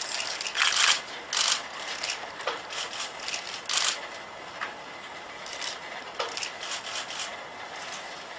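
Kawada HRP-4 humanoid robot's joint motors whirring in short bursts as it moves its arms, several quick bursts in the first four seconds and a cluster again near the end.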